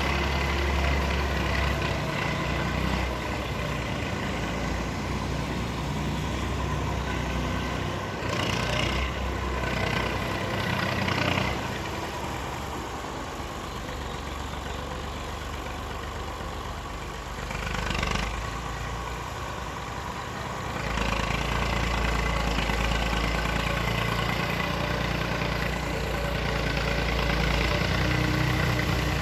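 Excavator's diesel engine running under varying load, its low rumble easing off and building again, with a few short rushes of noise partway through.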